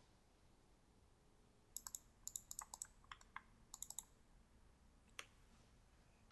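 Computer keyboard typing in a quick burst of key clicks lasting about two seconds, then a single click about a second later. The clicks are faint over quiet room tone.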